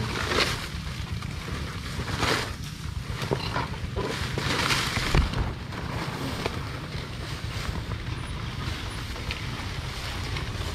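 Underbone motorcycle riding down a dirt trail, with a steady low wind rumble on the microphone, several short hissing surges, and a sharp knock about five seconds in.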